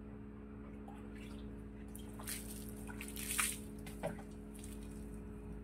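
Water poured from a plastic bowl over a German Shepherd's shampooed coat, splashing and dripping in two short pours in the middle, the second the louder, over a steady low hum.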